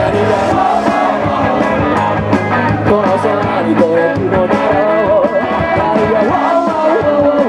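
Live rock band playing loudly through a PA, electric guitars, bass and drums, with a sung melody over them, heard from the crowd.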